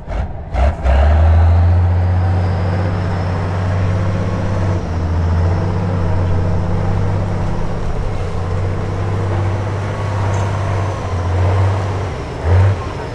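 Heavy off-road trial truck's engine working under load as the truck crawls through deep mud: a steady deep drone, with two brief louder surges near the end.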